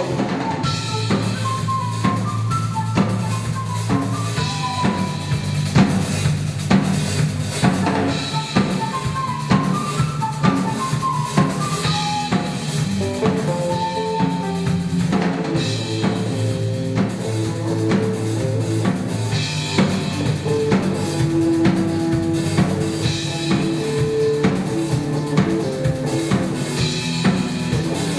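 Rock band playing live, the drum kit keeping a steady beat on bass drum and snare under a bass line and held melody notes.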